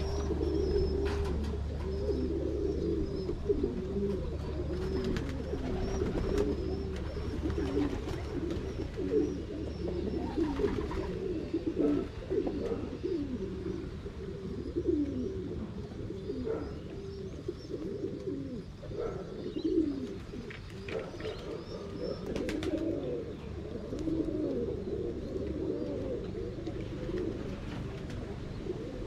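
A group of pigeons cooing continuously, many low coos overlapping one another, with a few short sharp sounds among them, one of them a quick flutter of wing flaps.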